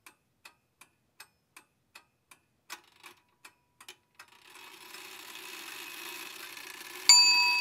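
Ticking clock sound effect, about three even ticks a second, used as a suspense pause. From about halfway a hiss swells up, and a bell-like ringing tone starts suddenly near the end.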